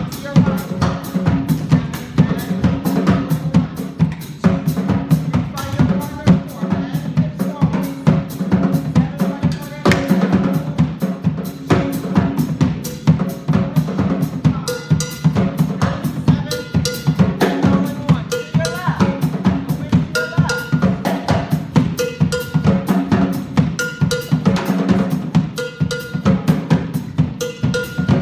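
Percussion accompaniment of drums playing a quick, steady beat. About halfway through, a higher ringing tone joins the pattern.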